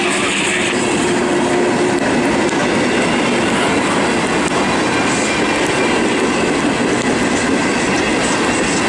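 Freight cars (tank cars, gondolas and boxcars) rolling past: steel wheels running on the rails in a loud, steady rumble.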